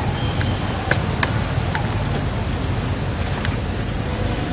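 Steady low outdoor rumble, with a few short sharp clicks about a second in and again near three and a half seconds in.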